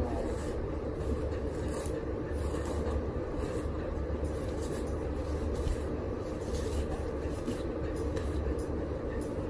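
A steady low rumble runs throughout, with faint rustling and rubbing as hair is handled.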